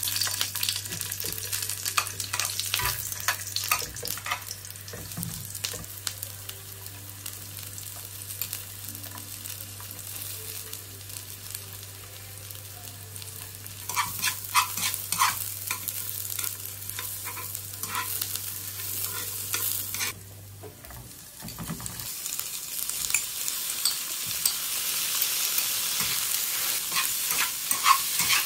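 Sliced onion sizzling in hot oil in a nonstick frying pan, with metal chopsticks clicking against the pan as they stir. About three-quarters of the way through, cubes of raw pork belly go in and the sizzle grows louder.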